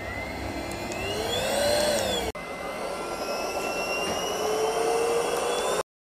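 Airbot Supersonics Aura cordless stick vacuum running on the floor, its motor whine sliding up and then down in pitch. The sound breaks off briefly about two seconds in, then the vacuum runs again with a slowly rising whine and stops abruptly near the end.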